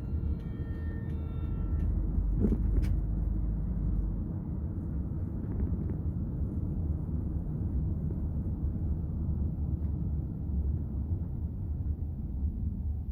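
Steady low road and engine rumble inside a Kia K5's cabin while driving on a highway, with faint steady tones in the first couple of seconds and a brief click about two and a half seconds in.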